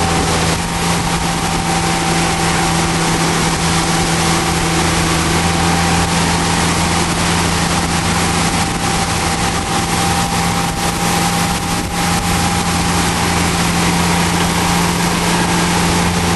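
Tow boat's engine running steadily at towing speed, its pitch almost unchanged, under a constant rushing hiss of water and wind.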